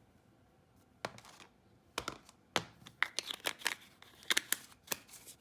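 Soft cloud-cream slime being squeezed and stretched by hand, making irregular sharp clicks and crackles that start about a second in.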